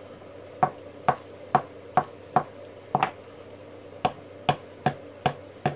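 9-volt batteries dropped again and again from a few centimetres onto a workbench, a sharp knock each time they land, about two a second. It is the drop test for remaining charge: a full battery lands dead, while a spent one bounces.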